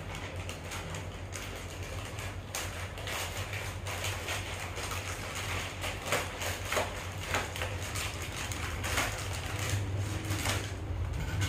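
Metallised foil pouch crinkling and rustling as it is handled and cut open with scissors, in many short irregular crackles and snips. A steady low hum runs underneath.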